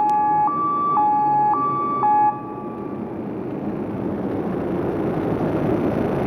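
A two-tone electronic alarm alternating high and low about every half second, which stops about two seconds in. Under it the Akasaka AX31R marine diesel engine runs on the test bed, its steady noise growing louder over the following seconds.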